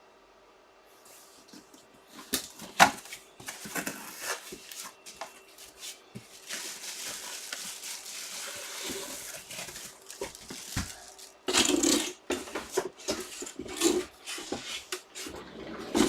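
Hands handling and unwrapping packaging: rustling and crinkling, with a longer stretch of steady rustling in the middle, broken by light clicks and knocks.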